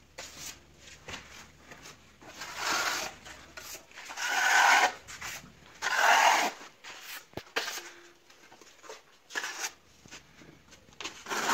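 Steel trowel scraping decorative travertine plaster across a plasterboard wall in several strokes, each a rasping scrape of about a second, with a single sharp tap midway.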